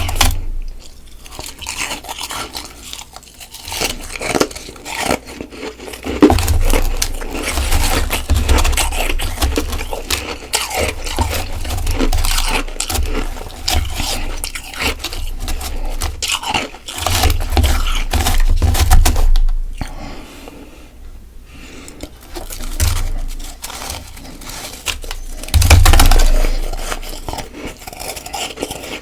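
Soft freezer frost being bitten and chewed close to the microphone: dense, crackly crunching that goes on with short pauses, with deep low thuds in several stretches.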